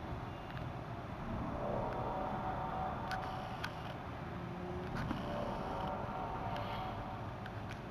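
A low moaning drone made of several held tones that swell and fade over a steady rumble, the unexplained 'strange sound in the sky' reported in early 2012. A few faint sharp clicks come and go.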